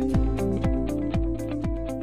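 Electronic background music with a steady kick-drum beat, about two beats a second, over held synth chords.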